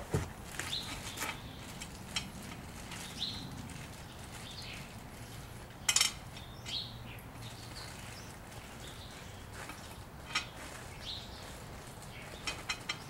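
Light clicks and rustles of grill parts and packaging being handled and sorted, with a sharper clatter about six seconds in. Faint chirps sound here and there.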